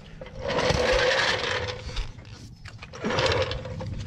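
Steel floor jack rolled across a concrete driveway on its caster wheels, a rolling noise in two pushes with a steady whine running through it.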